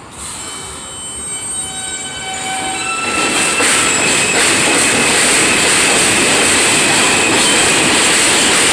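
R160A subway train starting off and accelerating past: a set of whining tones steps up in pitch over the first three seconds as it gets moving. The sound then swells into the loud, steady run of wheels on rail with a high squeal.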